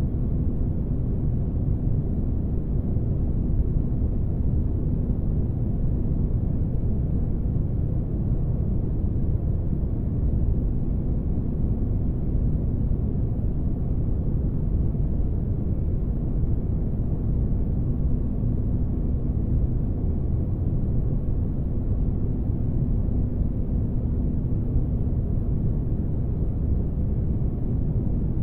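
Spaceship ambience noise: a steady deep rumble, heaviest in the low end, with a faint hum that fades a few seconds in and comes back near the end.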